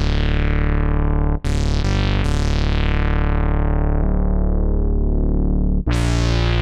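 GForce Oddity 3 software synthesizer, an ARP Odyssey emulation, playing low sustained notes full of overtones. The filter closes slowly, so each note darkens over a few seconds. New bright notes strike about a second and a half in and again near the end.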